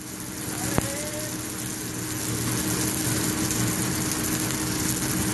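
Eggs frying in steel rings on a flat-top griddle, a steady sizzle under a constant low machine hum, with one sharp click about a second in.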